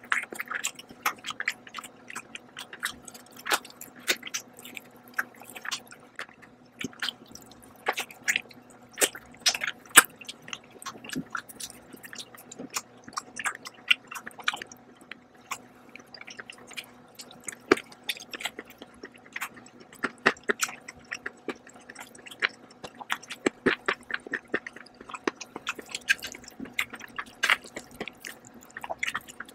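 Close-up chewing and wet mouth smacks of a person eating poached chicken and noodles: irregular clicks and smacks, several a second, throughout.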